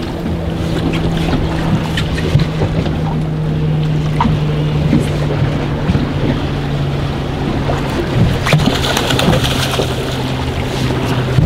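A boat's motor idling with a steady low hum that drops slightly in pitch about eight seconds in, over wind on the microphone and water lapping. Scattered light clicks and knocks come from the rod and reel as a hooked fish is reeled in.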